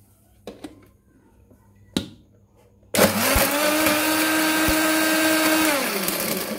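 Electric blender running on falsa berries and water, pureeing them into juice. After a couple of light knocks, it starts abruptly about halfway through with a quick rise in pitch, runs steady for about three seconds, then switches off and winds down just before the end.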